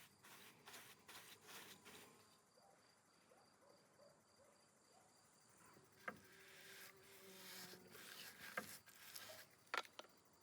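Faint insect chirping: a high, evenly pulsing tone, with a few sharp clicks about six and ten seconds in.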